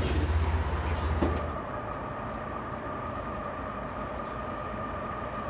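Low, steady hum of a standing Amtrak passenger train for about the first second and a half. After that comes a fainter steady rumble with a thin, steady high tone as a distant train approaches.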